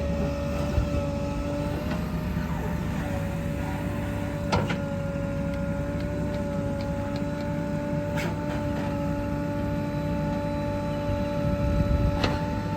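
A JCB 3DX backhoe loader running steadily, with a held whine over a low rumble. Three sharp knocks sound about a third of the way in, two-thirds of the way in and near the end.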